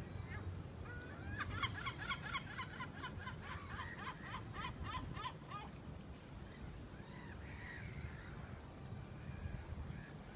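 Gull calling: a fast run of about twenty sharp, repeated notes lasting roughly four seconds, then a few fainter calls later. A low steady rumble runs underneath.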